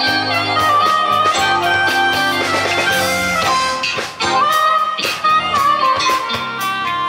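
Live band playing: a saxophone melody line over electric guitar, bass guitar, keyboards and a drum kit.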